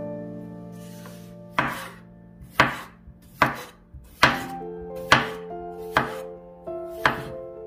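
Chef's knife slicing small potatoes into rounds on a bamboo cutting board: about eight sharp chops, roughly one a second, the blade striking the board each time.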